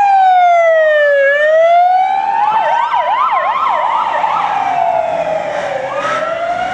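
Fire-and-rescue vehicle sirens: a slow wail that falls and rises again over a few seconds, with a second siren on a fast yelp overlapping it for a couple of seconds near the middle.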